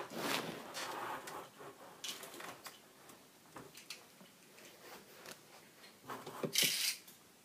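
Plastic handling noise as a Beyblade is fitted onto its launcher and the toothed ripcord is put in: rustling and small clicks, with a brief louder rasp near the end.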